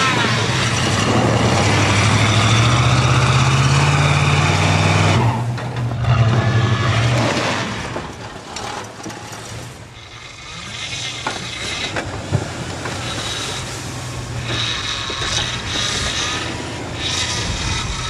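Pickup truck engine working as it pushes snow with a front plow blade: loud for the first five seconds or so, then dropping back to a quieter run.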